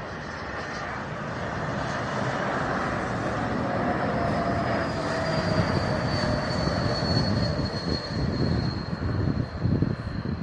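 Airbus A220 jetliner on landing approach, its Pratt & Whitney PW1500G geared turbofans growing louder as it nears, a broad rumble with a high whine that slides slightly down in pitch.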